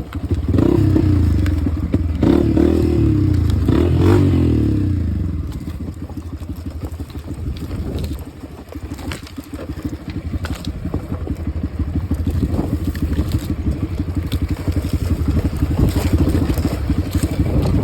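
Off-road dirt bike engine revving in three or four hard throttle bursts over the first five seconds, then running at lower, steadier revs, with scattered sharp knocks throughout.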